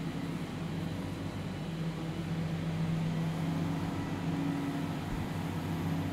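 Low, steady droning hum made of a few held deep tones, a dark ambient drone of the kind laid under a horror film's quiet scene; a slightly higher tone swells in about four seconds in.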